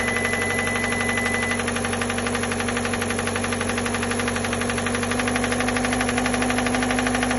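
Hyundai Elantra engine running with a fast, even ticking knock in time with the engine, the sound being checked for rod knock from worn connecting-rod bearings. A steady high tone sounds for about the first second and a half.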